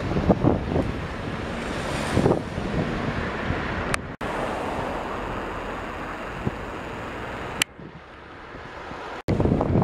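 Strong wind buffeting the microphone with a steady, rumbling rush. It drops out abruptly twice, with a sharp click, and there is a quieter stretch shortly before the end.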